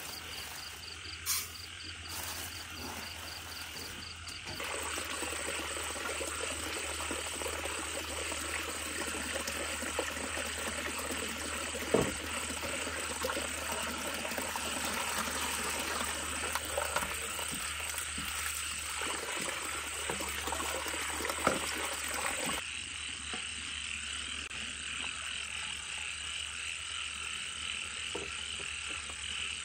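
Night chorus of frogs croaking and insects chirring steadily, with a few sharp knocks of kitchen basins being handled.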